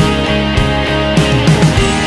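Background rock music with electric guitar over a steady drum beat, about one beat every 0.6 s.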